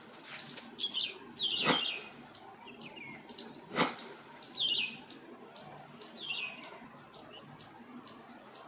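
Sharp clicks or taps, two loud ones about two seconds apart with fainter ones between, and short high bird chirps recurring in the background.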